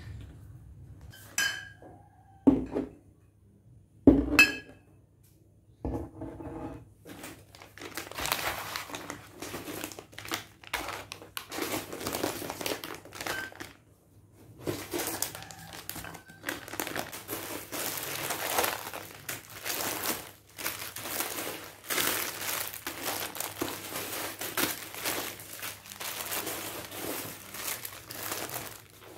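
Plastic grocery packaging crinkling and rustling as packs of dates and instant noodles are handled on a wooden counter. In the first few seconds there are three sharp knocks as cartons and packs are set down on it, the loudest about four seconds in.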